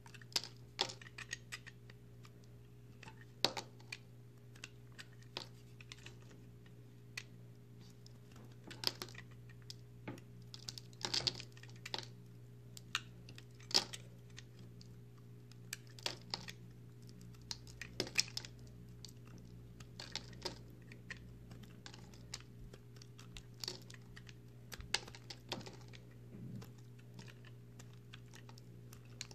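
Utility knife blade cutting into crumbly recycled soap: irregular, crisp crackles and crunches as chunks and crumbs break away, over a steady low hum.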